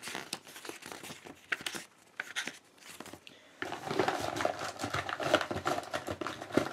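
Paper pages of a hardcover book being leafed through and handled: rustling and crinkling with a few soft clicks, denser and louder in the second half.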